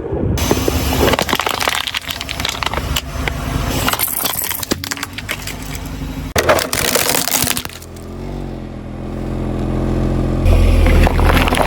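Objects crunching and crackling for several seconds as a car rolls over and crushes them. After that a car engine runs steadily, growing louder over the last few seconds.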